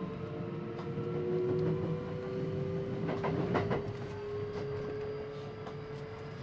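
Interior running sound of a Kintetsu 9820 series electric train: the inverter-driven traction motors give a steady whine that rises slowly in pitch over a low rolling rumble. About three seconds in the wheels clatter over rail joints.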